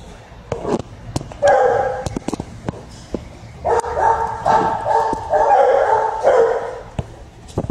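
A dog barking: one drawn-out bark about a second and a half in, then a quick run of about five more, with scattered clicks and knocks between them.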